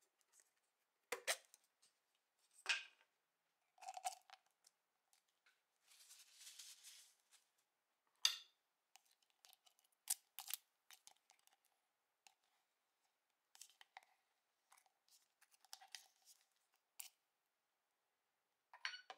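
Close handling sounds of a plastic dulce de leche tub and a metal spoon: scattered sharp clicks and taps, with a short rustling sound about six seconds in.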